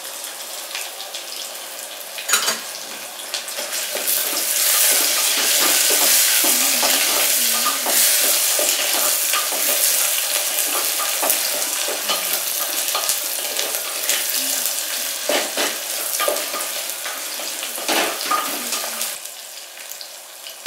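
Sliced onions and green chillies sizzling in hot oil in an aluminium pressure cooker, with a wooden spatula scraping and knocking against the pot as they are stirred. The sizzle grows louder about four seconds in and dies down near the end.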